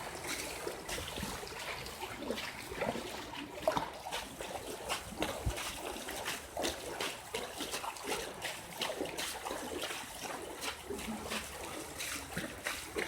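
Floodwater running down a road, trickling and splashing, with many short splashes throughout.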